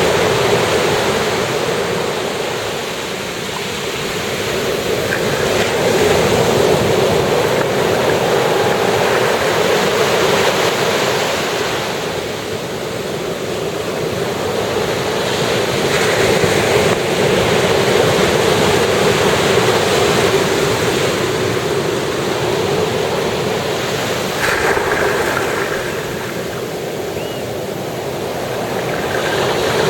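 Ocean surf breaking and washing on the shore: a continuous rushing wash that swells and eases every several seconds as the waves come in.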